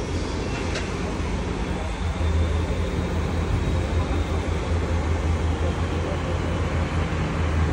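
Crane engine running with a steady low drone, getting a little louder about two seconds in as the load is lifted. A single light clink about a second in.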